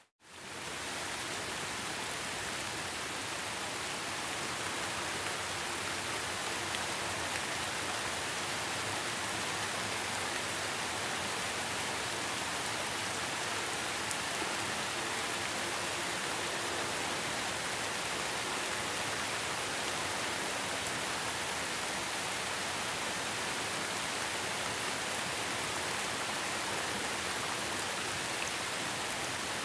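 Heavy rain falling steadily, an even hiss of many drops. The sound cuts out for a moment right at the start, then resumes.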